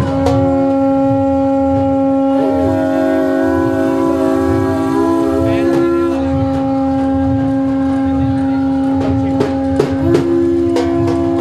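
Two conch shells (shankh) blown in long held notes. One steady low tone holds throughout. A second, slightly higher and wavering tone joins about two and a half seconds in, drops out around six seconds, and returns near the end.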